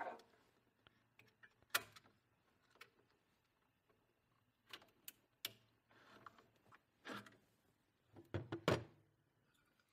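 Scattered light clicks and knocks as a laser module is lifted off and fitted onto the laser head carriage of a Creality Falcon A1 Pro laser engraver, with a quick cluster of clicks near the end as it seats.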